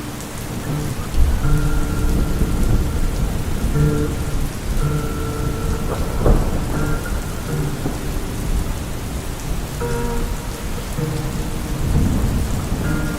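Steady heavy rain with low rolling rumbles of thunder and a sharp crack about six seconds in, over long held notes from a heavily slowed, reverb-drenched song.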